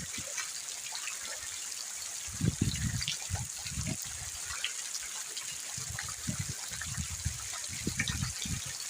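Rain falling steadily: an even hiss scattered with small drip ticks, with deeper rushing swells about two and a half seconds in and again from about six seconds.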